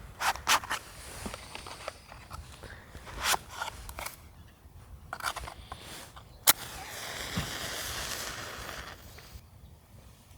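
Irregular sharp snaps and rustling from material being handled. About six and a half seconds in comes a sharp click, followed by an even hiss lasting nearly three seconds that then cuts off.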